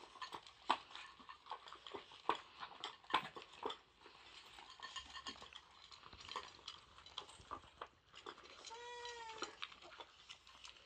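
Dogs eating from stainless-steel bowls: scattered clicks and clinks of mouths and food against the metal. About nine seconds in, one short animal cry, under a second long.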